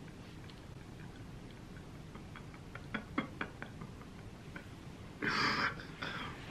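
Quiet room with a few faint soft clicks, then one short, sharp sniffling breath about five seconds in from a man who is crying.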